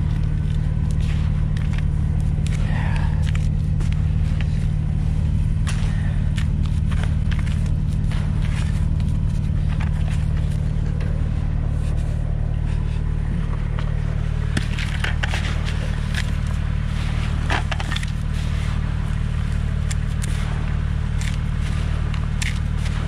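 A vehicle engine idling steadily, with scattered scrapes and gritty crackles as handfuls of sand are thrown down onto the snow around a truck tire for traction.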